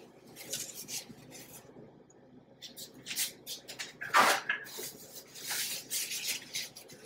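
Light kitchen handling noises: a run of brief rustles and soft knocks, with one louder clatter about four seconds in.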